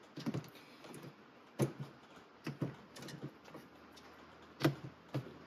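Pliers being set into the slots of a modular pliers organizer: several irregular light clicks and knocks of metal tools against the holders, the sharpest about one and a half and four and a half seconds in.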